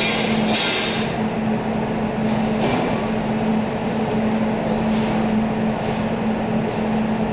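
Steady machinery drone with a constant hum, the running fans and refrigeration of a commercial kitchen. Near the start and again a few seconds in come a few brief scraping hisses from a knife trimming fat off a pork loin on a cutting board.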